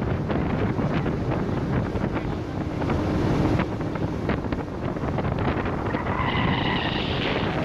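Wind buffeting the microphone on a moving tour boat, mixed with the steady rush of the boat's engine and hull over the water.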